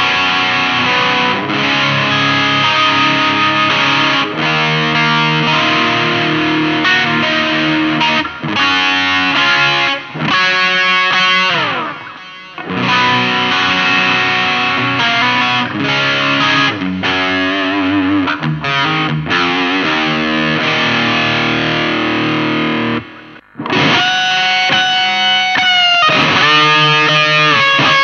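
Electric guitar played through a Mooer GE150 Pro multi-effects processor with a distorted tone, mixing chords and lead lines. A falling slide comes about ten seconds in. Near the end there are held notes with vibrato.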